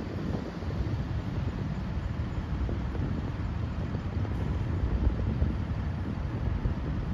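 Steady low rumble of city street noise from passing road traffic, with no distinct single event.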